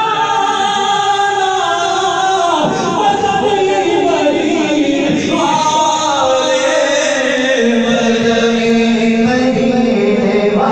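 A man reciting an Urdu naat, singing long held notes that slide up and down between phrases.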